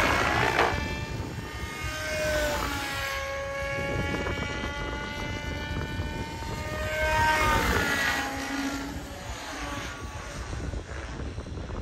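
M7 RC helicopter flying aerobatic passes: the rotor whooshes and the drive whines in several tones that slide up and down in pitch as it manoeuvres and passes by. It is loudest near the start and again about seven seconds in.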